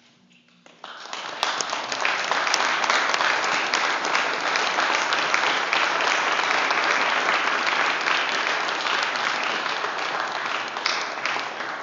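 Wedding guests applauding the couple's first kiss. The applause breaks out suddenly about a second in and holds loud and steady.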